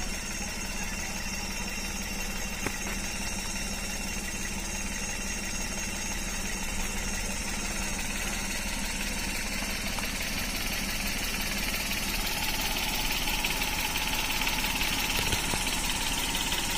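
A vehicle engine idling steadily, with a steady high-pitched tone over it, getting a little louder in the last few seconds.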